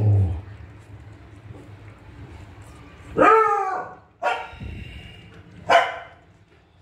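Young puppy yelping three times: a wavering cry about three seconds in, then a sharp yelp, then a brief one. A dull low thump comes right at the start.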